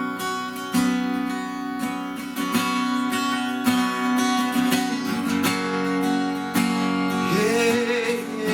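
Acoustic guitar strummed in a slow, steady rhythm: the instrumental introduction to a worship song.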